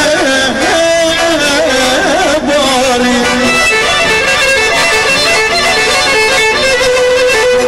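Traditional Greek folk dance music, loud and continuous, with a wavering, ornamented melody line over the accompaniment.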